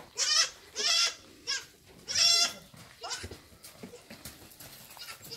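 Goats bleating: several short, wavering calls in quick succession, the loudest a little over two seconds in.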